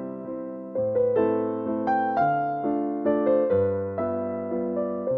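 Background piano music: chords and single notes struck one after another, each left to fade.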